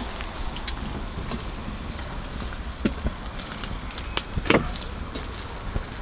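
An egg frying in a small frying pan on a camp stove, with a steady crackling sizzle. A few sharp clicks and knocks of utensils and dishes come through it, the loudest a little past the middle.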